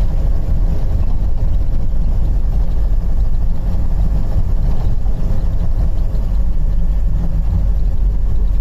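Steady low rumble of engine and road noise inside a moving car.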